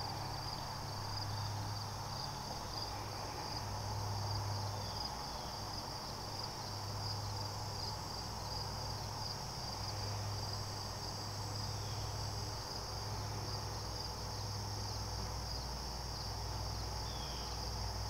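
Evening chorus of crickets: a steady, high-pitched trilling. Underneath, a low hum swells and fades every few seconds.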